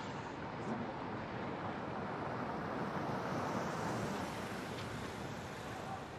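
Tesla Model S electric car rolling across paving toward the listener: an even rush of tyre and road noise with no engine sound, swelling to its loudest midway and easing off as the car slows to a stop.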